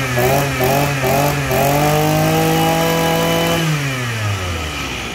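Shingu brush cutter's small two-stroke engine being revved: a few quick blips of the throttle, then held at high revs for about two seconds before it drops back to idle near the end. It runs smoothly and sounds light.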